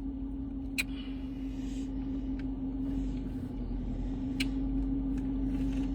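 A steady low hum with a constant tone and a rumble underneath, broken by a few faint clicks about one, two and a half and four and a half seconds in.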